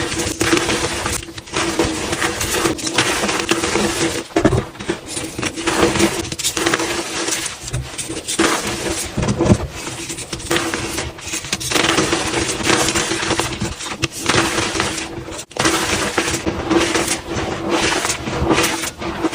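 Blocks of gym chalk being crushed, a dense, continuous crunching and crumbling with brief pauses.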